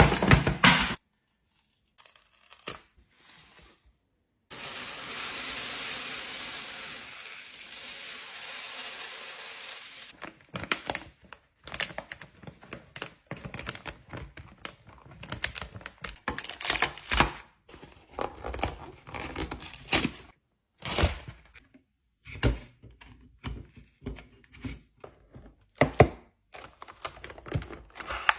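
Drinks and snacks being unpacked and arranged in a fridge: plastic packaging tearing and crinkling, and bottles and containers knocking as they are set down. A steady rushing noise lasts about five seconds near the start, followed by many separate clicks and knocks.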